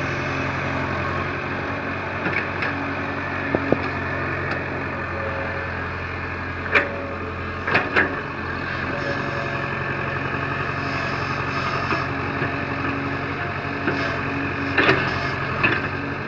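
Tata Hitachi EX70 mini excavator's 58 hp diesel engine running steadily as it works the bucket through loose soil, with several short sharp knocks, twice in quick pairs.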